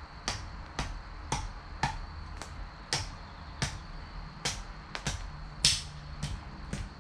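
Wood fire crackling: burning firewood throws out sharp, irregular snaps, about two a second, the loudest about two-thirds of the way in.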